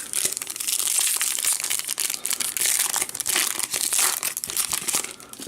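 A trading-card pack wrapper crinkling and crackling as it is torn open and handled, a dense run of small crackles that thins out near the end.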